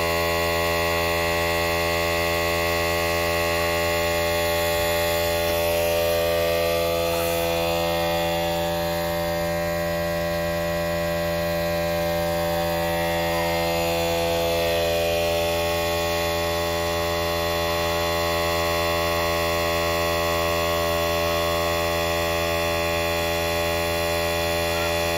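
A steady low hum with many evenly spaced overtones, holding one pitch and level.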